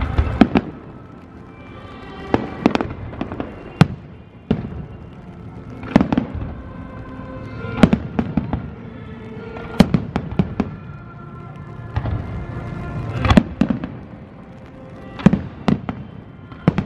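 Aerial fireworks display: shells bursting in sharp bangs about every one to two seconds, each followed by a short run of crackling, with music underneath.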